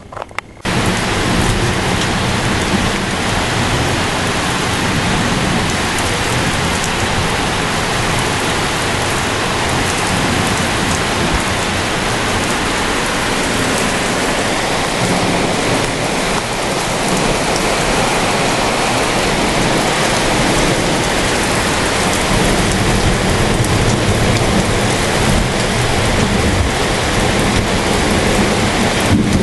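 Heavy rain pouring steadily during a thunderstorm, with thunder rumbling low underneath. It cuts in suddenly about half a second in.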